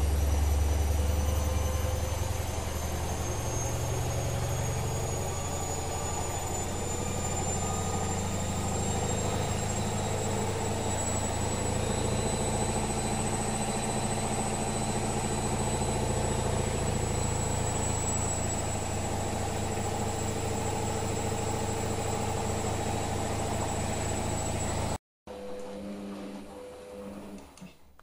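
Candy GO 510 front-loading washing machine on its rinse spin, set for 1000 rpm: a steady deep drum-and-motor hum with a high motor whine that rises slowly and then holds. The sound cuts off abruptly about 25 seconds in, and a few seconds of quieter, lower running follow.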